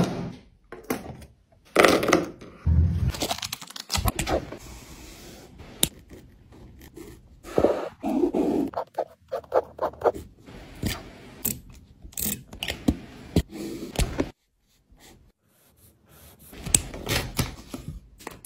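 Irregular scraping and rustling, broken by many sharp clicks and knocks. It stops briefly about two-thirds of the way through, then resumes.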